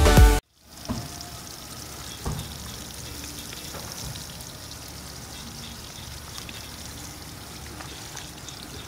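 Background music that cuts off about half a second in, then a steady hiss of background noise with two light knocks, one about a second in and one about two seconds in.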